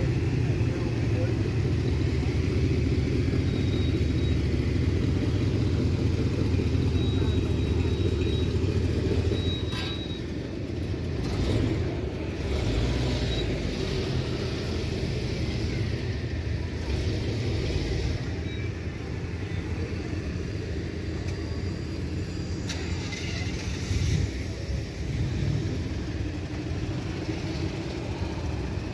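A car engine running with a deep rumble, louder for the first ten seconds or so and then settling lower, with people talking in the background.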